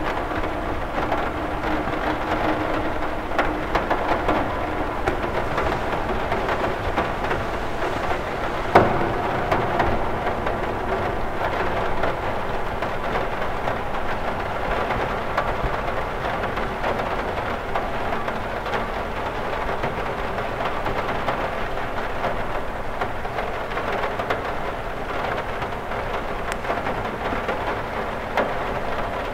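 Steady rain falling on a cathedral window, an even hiss of drops throughout, with one sharp tick of a drop about nine seconds in.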